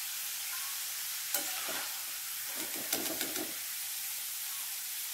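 Hot oil sizzling steadily in a steel kadai with a few small fried bits left in it, with a few sharp ticks about a second and a half in and again around three seconds in.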